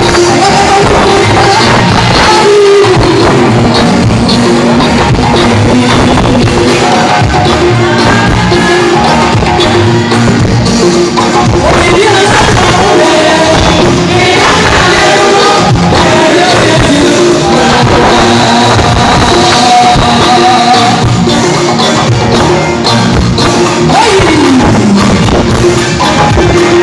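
Loud gospel music: a singer with a band, the voice holding and sliding between notes over a dense, steady backing.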